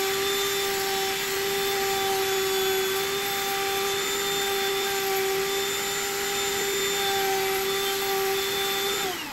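Table-mounted wood router running at a steady high pitch while a small wooden insert for a pickup hole is trimmed around the bit. Near the very end it is switched off and its pitch starts to fall as it winds down.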